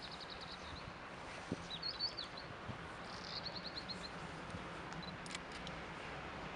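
Small birds chirping in three short trills of quick repeated high notes, over a faint steady low rumble from a distant steam locomotive approaching with a freight train.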